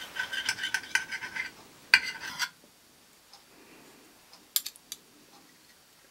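Knife and fork clinking and scraping on a plate in quick strokes for about two and a half seconds, with one sharper strike near the end of that run, then a few light clicks a couple of seconds later.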